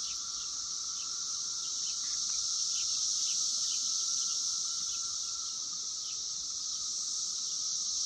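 Chorus of 17-year periodical cicadas: a steady, unbroken high drone, with a lower steady whine under it that fades out about two-thirds of the way through. Scattered short chirps sit on top.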